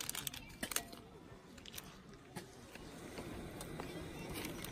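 A few crinkles and clicks as a small paper packet is squeezed and handled over a cooking pot in the first second, then a steady low hiss from the gas stove burner heating the pot, growing slightly louder toward the end.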